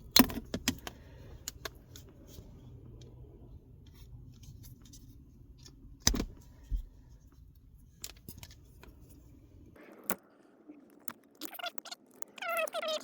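Heavy staples being pried and pulled out of plastic console trim with a metal tool: scattered sharp metallic clicks and clinks, the loudest at the very start and about six seconds in. A low rumble stops suddenly at about ten seconds, and a brief wavering squeak follows near the end.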